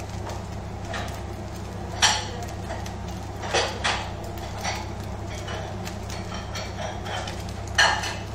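Kitchen dishes and utensils clattering as they are handled: a few sharp knocks, the loudest about two seconds in and near the end, over a steady low hum.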